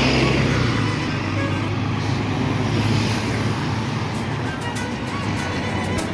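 Road traffic: a city bus passing close by, loudest in the first second, then steady traffic noise from cars on the road. Music plays along with it, with a regular high ticking beat from about four seconds in.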